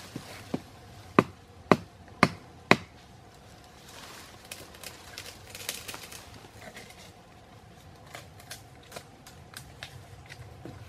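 Stone blade chopping at a thin sapling: about six sharp strikes roughly half a second apart in the first three seconds, then quieter scraping and light ticks.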